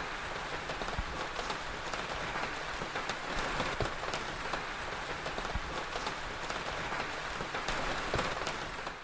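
Steady rain, an even hiss dotted with scattered sharp drop impacts, cutting off suddenly at the end.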